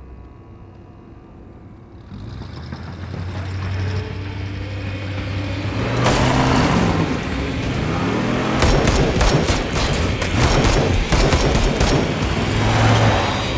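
A truck's engine revving harder and rising in pitch as it speeds straight at the listener. From about nine seconds in, a rapid run of loud cracks and bangs comes in over it, with tense film music underneath.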